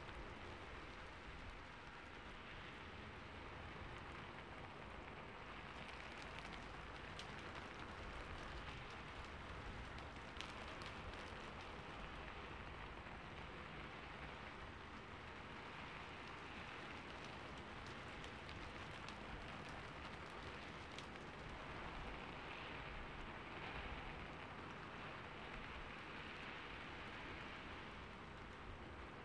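Steady hiss of rain falling, with faint scattered ticks.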